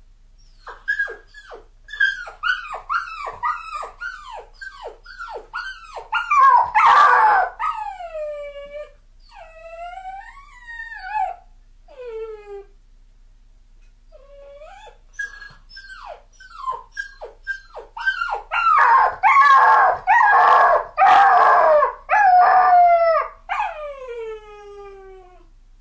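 A puppy crying: quick short falling whines, two or three a second, that build into louder, longer howling cries. After a lull of a couple of seconds the pattern repeats and ends in a long falling howl. It is separation crying from being left alone for the first time, not crying from pain.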